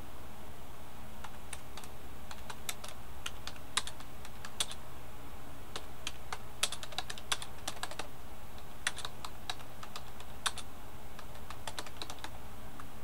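Computer keyboard typing in irregular bursts of clicks, over a steady low hum.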